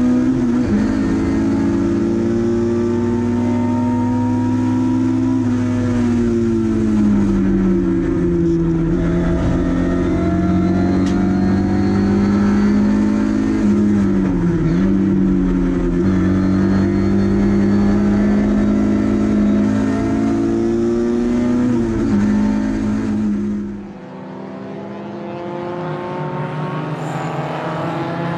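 Lada 2102 race car's four-cylinder engine running hard under racing load, heard from inside the stripped cabin, its pitch sliding up and down with the gear changes and corners. About 24 s in it turns quieter, heard from trackside instead, and then grows louder as the cars come near.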